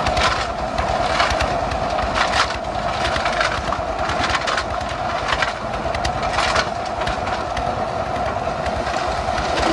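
Concrete mixer running steadily on a road-building site, its engine giving a constant drone while gravel and cement churn in the drum with irregular crunching and clattering about once a second.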